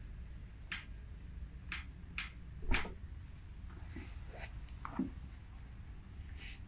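Short scratchy rustles of hands, skin and fabric moving on a treatment table during a manual adjustment session. One louder, sharp click comes a little under three seconds in, and a softer knock about five seconds in.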